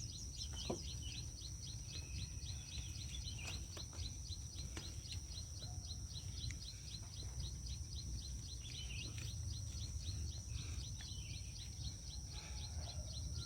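Faint background ambience: a steady high-pitched whine with a short chirp repeating about three times a second, over a low hum.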